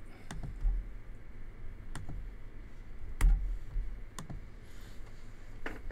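Scattered sharp clicks from a computer mouse and keyboard being worked at a desk, about five over a few seconds, the loudest about three seconds in.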